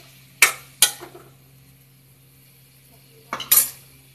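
Steel spoon scraping and clinking against a steel kadhai as diced raw papaya is stirred: two sharp strikes in the first second, then a brief clatter near the end.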